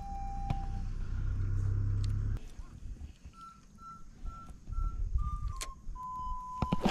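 Background music: a slow tune of single, pure whistle-like notes, some short and some held. Under the first couple of seconds there is a low rumble, and a few sharp clicks come later.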